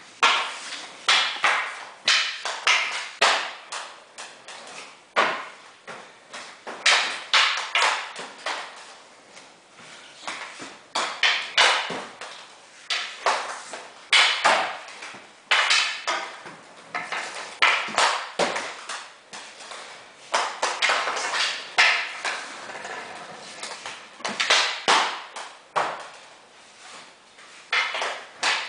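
Roller hockey stick striking a plastic ball and inline skate wheels rolling and scraping on a hard tiled floor: a long run of sharp knocks and scrapes, several a second at times, with a short echo after each.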